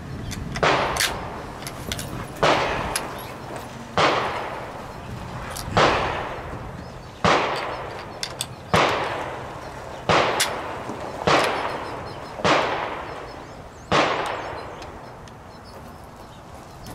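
Rifle shots from other shooters on the range, about ten at a fairly steady pace of one every second and a half, each with a long echoing tail. The shots stop a few seconds before the end.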